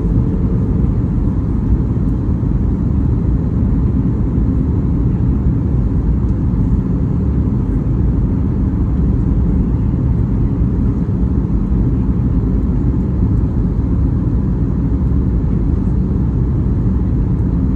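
Steady low rumble of cabin noise inside a Boeing 737 MAX 8 airliner: its CFM LEAP-1B engines and airflow, holding an even level throughout.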